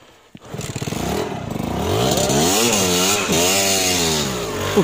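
Dirt bike engine running up about half a second in and being revved up and down several times, under load as the rider works the bike out of a muddy rut.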